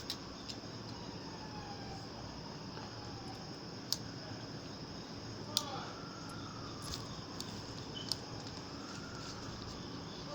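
Steady high-pitched chirring of insects, typical of crickets, with a few short sharp clicks scattered through it.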